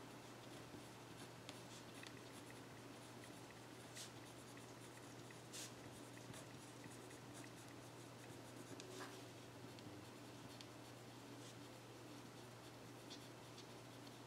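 Faint scratching of a pen writing on paper, with a few light clicks from the pen strokes, over a steady low hum.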